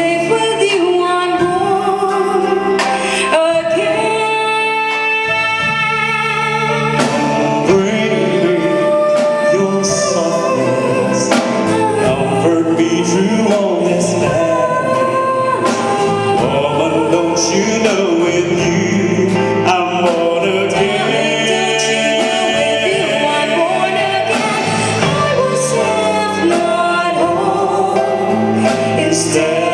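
A live band playing with singers, performing a medley of English pop duets.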